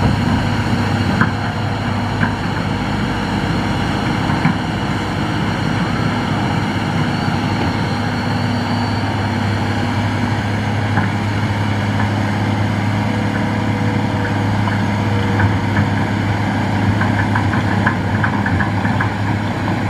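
Hitachi excavator's diesel engine running steadily with a deep, even hum, and scattered short clicks and knocks, a quick run of them near the end.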